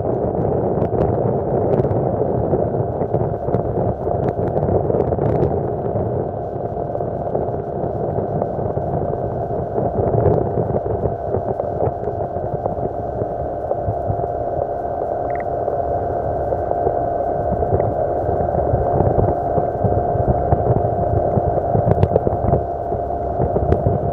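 Yamaha 40 hp two-stroke outboard motor running steadily, with the boat under way.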